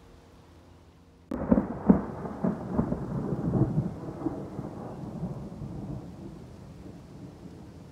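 Thunder: a sudden close crack about a second in, then a rolling rumble of several sharp peaks that dies away over the next five seconds.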